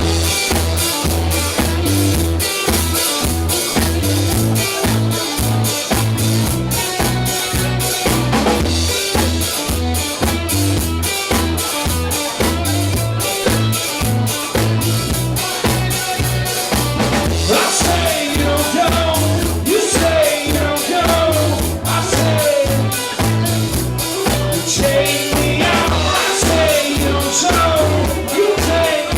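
Live rock band playing with a driving drum kit and bass line; a voice sings over it in the second half.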